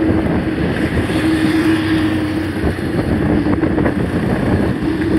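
A mountain bike rolling along at speed: a steady hum of the tyres on the road under a constant rush of riding noise.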